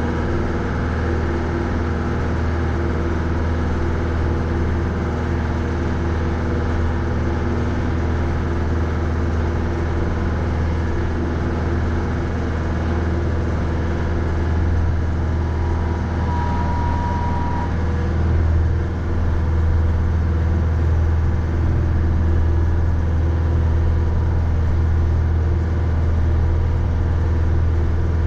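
Mahindra 3550 tractor's 50 hp diesel engine running steadily under plowing work, a deep, even drone that grows slightly louder about two-thirds of the way through.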